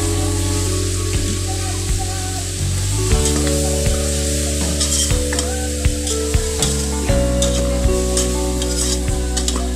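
Beef, onions and tomatoes sizzling as they sauté in an aluminium pot, with a spatula clicking and scraping against the pot while stirring. Background music with sustained chords plays underneath.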